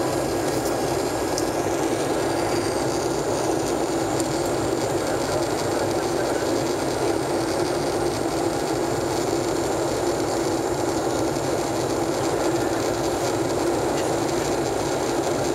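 Steady cabin noise inside a Boeing 767 in flight: the even rush of airflow and the drone of the jet engines, unchanging throughout.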